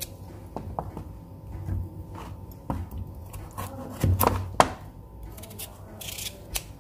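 Kitchen knife cutting raw carrots into pieces on a cutting board, with several sharp knocks as the blade meets the board, the loudest a little past four and a half seconds in.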